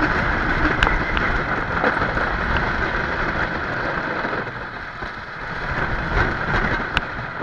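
Wooden roller coaster train running at speed over its timber track: a steady rumble with wind rushing over the microphone and a few sharp knocks, easing slightly around five seconds in and then building again.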